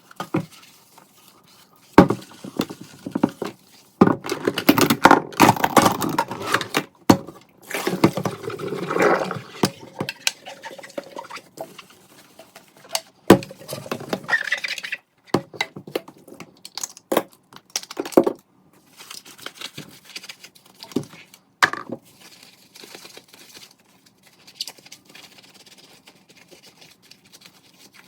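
Kitchen tidying sounds: dishes and utensils clinking and knocking as they are handled and put away, with stretches of rustling and scattered sharp knocks. A busier run of handling comes in the first third, and things grow sparser toward the end.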